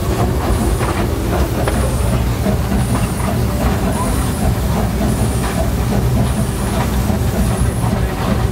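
Small steam locomotive hauling its train, heard from the open car just behind it: a steady running rumble with wheels clicking over the rails and a soft hiss that repeats about once a second.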